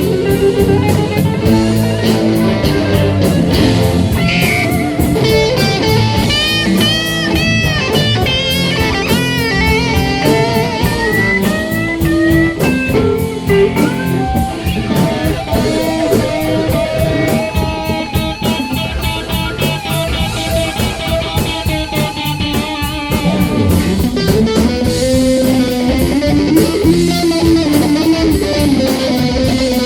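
A live band playing: an electric guitar leads with bent notes over a drum kit keeping a steady beat.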